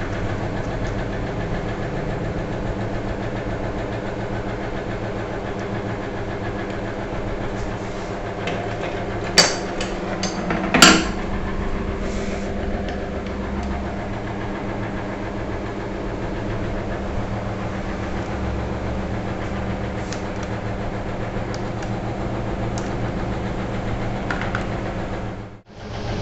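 A steady low machine hum of several tones, with two sharp clicks about nine and eleven seconds in. The hum cuts out for a moment near the end.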